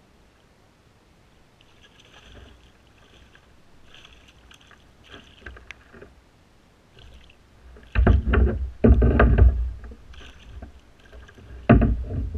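A hooked chain pickerel splashing and thrashing at the water's surface beside a kayak as it is hand-lined in: loud bursts of splashing about eight seconds in, lasting a couple of seconds, and another short burst near the end, after several seconds of faint scattered sounds.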